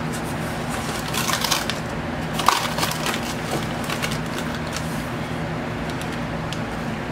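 A cardboard vinyl-record mailer being handled and cut open with scissors: short crackling and scraping bursts a little after a second in and again around two and a half to three seconds, over a steady low hum.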